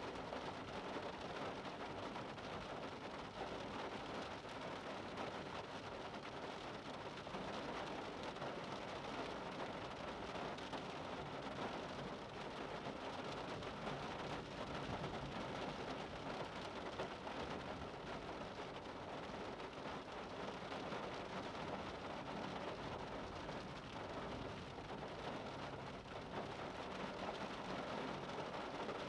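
Steady rain falling and pattering on window glass.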